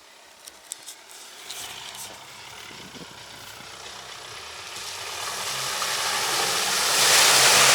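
A vehicle's engine running as it drives into a deep puddle, with the rush and splash of water building up and becoming loudest near the end.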